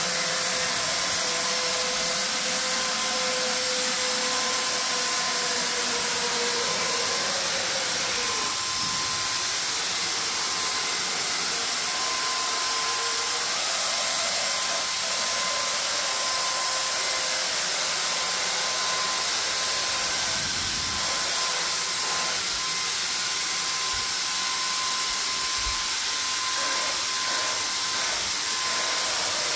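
Handheld electric paint sprayer running steadily as paint is sprayed onto the walls and ceiling: an even hiss with a steady whine.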